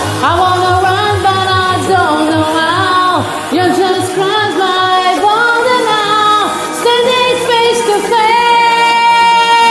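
Female voice singing long, sliding notes without clear words over a pop backing track with a pulsing beat. Near the end she holds one long steady note.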